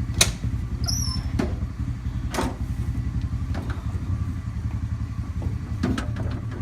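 An engine idling steadily with a low, even rumble, with a few short knocks and a brief high chirp about a second in.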